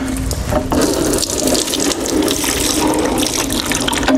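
Old engine oil pouring in thin streams out of a GMC 302 inline-six block and splashing and trickling into a drain pan, while the block is rolled over on its engine stand with scattered clicks and knocks.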